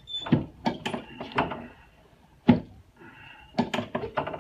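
Knocks and thumps from a chiropractic treatment table as the patient's sacroiliac joint is adjusted. There are several sharp knocks, one much louder thump about two and a half seconds in, and a few more near the end.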